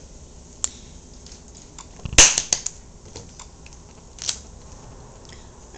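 Handling noise from a mobile phone close to the microphone: a few sharp clicks and knocks, the loudest a quick cluster of clacks about two seconds in, another near four seconds.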